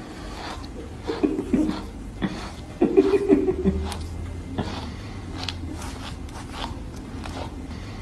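Husky grumbling and 'talking' in two short bursts of vocal noise, about a second in and again around three seconds in, as it protests being fitted for a harness. Rustling and small handling noises run underneath.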